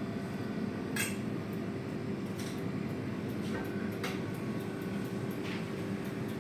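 Shop ambience at a deli counter: a steady hum with a handful of light clinks and clicks of items being handled behind the counter.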